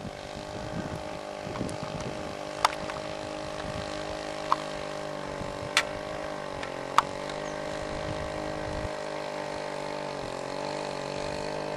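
Two-stroke weedwacker engine of a remote-controlled boat running steadily on the water, its pitch wavering slightly a couple of times. Four short sharp clicks sound over it.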